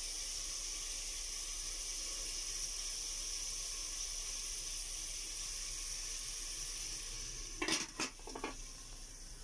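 Chopped pork sizzling steadily in an aluminium pot. Near the end a glass lid is set on the pot with three quick clinks, and the sizzle becomes quieter under the lid.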